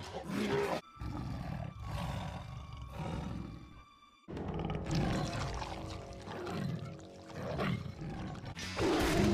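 A cartoon monster's growls and roars, performed by a voice actor, over background music, with a short break about four seconds in.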